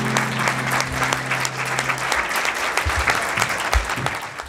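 Audience applauding and clapping. The last held chord of the accompaniment dies away about two seconds in, and the applause fades near the end.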